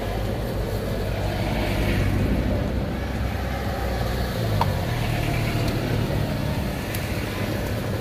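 Steady low rumble of a motor vehicle, with a couple of faint clicks.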